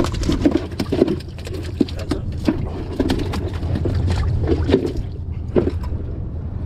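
Irregular knocks and thumps in a small aluminum boat as a landed shovelnose guitarfish is handled on the wet deck, over a steady low rumble.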